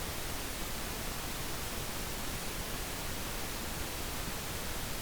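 Steady, even hiss of background noise, with no other sound.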